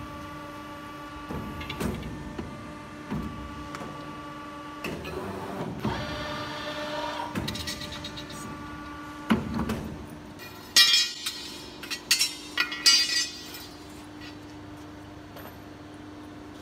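Hydraulic CNC tube bending machine running an automatic bending cycle: a steady hum under repeated clunks as the clamps and axes move. A hiss comes about midway, and a cluster of loud, sharp metallic clanks and hisses comes about two-thirds through.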